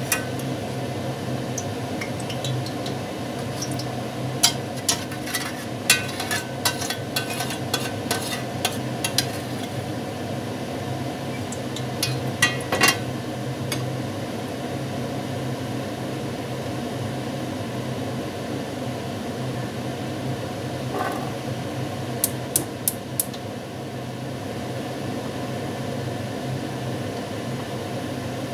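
Cooking utensils clinking and knocking against pans in several short clusters, over a steady low hum.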